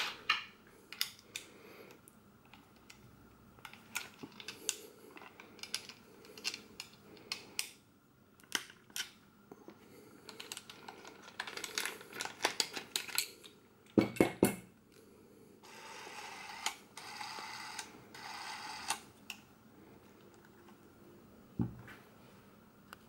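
Handling noises from a Bell & Howell 8429 Super 8 camera and its chrome pistol-grip handle: scattered clicks and taps of metal and plastic parts, with a quick run of loud clicks about two-thirds of the way in. A few seconds of scraping follow, and there is one soft thump near the end.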